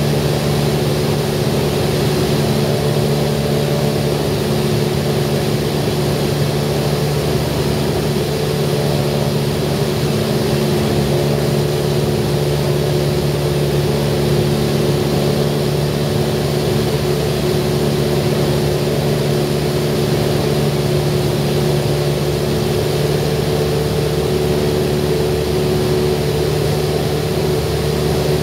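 Cessna 172R's four-cylinder Lycoming IO-360 engine and propeller running at a steady cruise setting, heard as a constant drone inside the cabin with airflow hiss over it.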